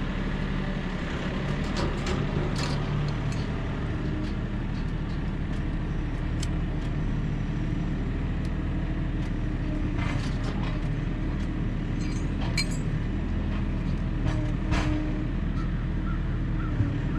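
A vehicle engine running steadily, with scattered light rattles and clicks over it.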